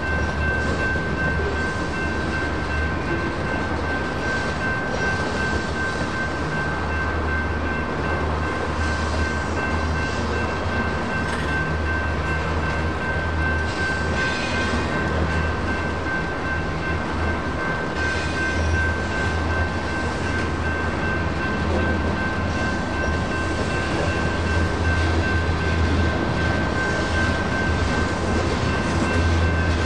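Freight train cars rolling through a grade crossing with a steady low rumble and scattered wheel clicks, while the crossing's electronic bell keeps ringing.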